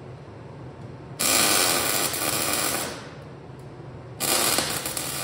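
Welding an oxygen-sensor bung into a steel exhaust header: two bursts of arc noise, each about two seconds long, starting about a second in and again about four seconds in.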